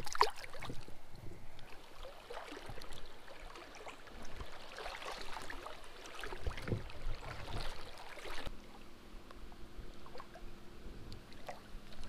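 Creek water splashing and sloshing: a small bass drops back into the water with a splash at the start, then legs wade through the shallow stream.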